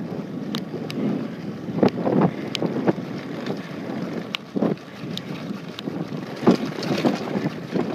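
Mountain bike coasting fast downhill over a rough dirt trail: wind rushing on the microphone and tyres on dirt, with frequent sharp clicks and knocks as the bike rattles over stones and bumps.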